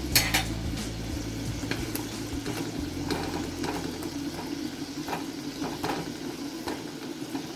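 Boerewors sausages sizzling in their own fat and oil in a pan over a wood fire, with frequent irregular crackles and pops.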